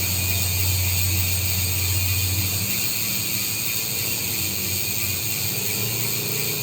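Shimano MT401 Micro Spline rear hub freehub ticking fast as the wheel freewheels. The pawls give a rapid, buzzing run of clicks, with a low hum under it that drops away about a third of the way in.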